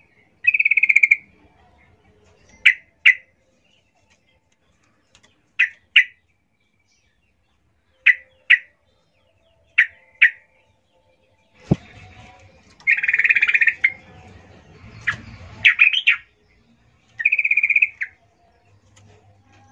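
Female yellow-vented bulbul calling: pairs of short sharp chirps every two to three seconds, with several longer buzzy chattering calls, one near the start and three in the second half. These are the calls a female gives to draw in males.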